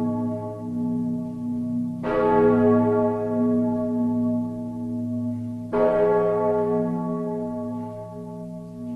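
Slow tolling bell in a dark ambient track: two deep strikes, about 2 and 6 seconds in, each ringing out and fading slowly over a steady low drone.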